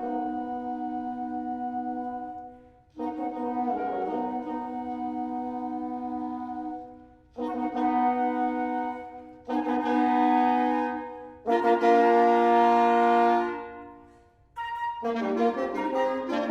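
A quartet of four French horns plays sustained chords in phrases a few seconds long, separated by short breaks. The phrases grow louder toward the middle, and the last phrase, about fifteen seconds in, moves through quicker changing notes.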